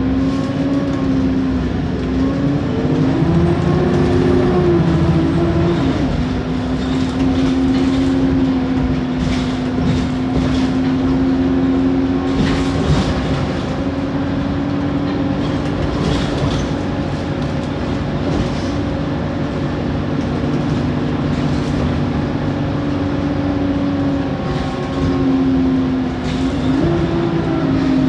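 Diesel bus engine running with its cooling fans and turbocharger whine: a steady tone that climbs in pitch a few seconds in, settles, and climbs again near the end as the revs change, with light rattling in the middle.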